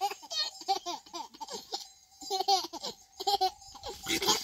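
A baby laughing in short, repeated bursts of giggles while being played with and tickled, with a brief pause about halfway through.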